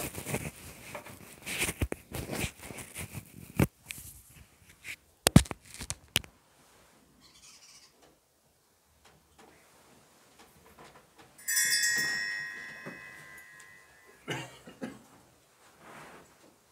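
Light clinks and knocks of altar vessels being handled and set down. About halfway through comes a single bright bell-like chime that rings out and fades over a couple of seconds.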